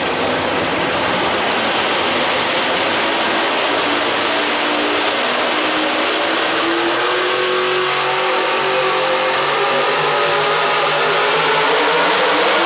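A competition pulling vehicle's engine runs hard at high revs under load, its pitch rising around the middle and the sound building slightly toward the end.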